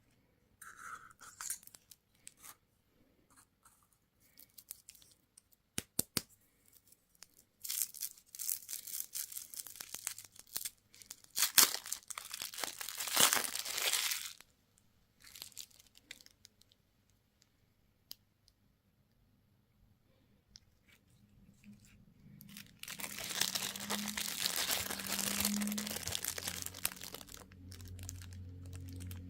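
Plastic candy and toy packaging being torn open and crinkled by hand, in two long bouts of ripping rustle with a few sharp clicks and quiet pauses between.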